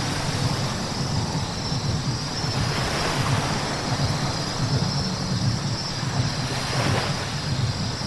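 A car driving on a wet road: a steady low engine and road drone with tyre hiss from the wet surface, swelling briefly a few times.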